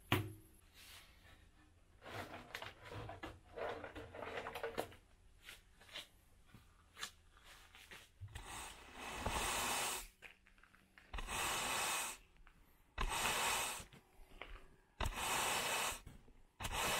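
A knock, then a few seconds of metallic scraping and rattling as a fuel tank is worked off a car chassis. From about halfway on come several long, even strokes of a push broom scrubbing across a concrete floor, each about a second long.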